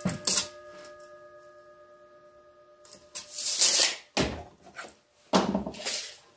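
A metal tape measure and a rough-cut oak board being handled on a miter saw: a clink at the start leaves a ringing metallic tone that fades over about three seconds, then three scraping, rubbing sounds follow, the second one ending in a knock.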